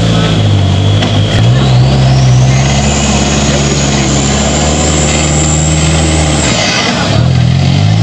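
Off-road 4x4's engine revving hard under load in mud. The revs climb about a second and a half in, hold high, drop off near seven seconds, then rise again at the end, with a high whine that follows the revs.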